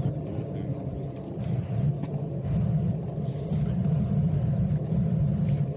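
Steady low rumble of wind buffeting the camera's microphone while riding a bicycle.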